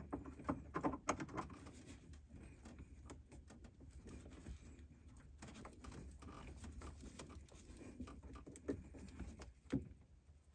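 Faint, irregular clicks and scrapes of pliers gripping and turning a plastic radiator drain plug, with a couple of louder knocks near the end.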